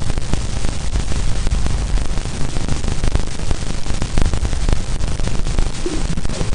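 Dense crackling static with a low rumble underneath, a space signal converted to sound.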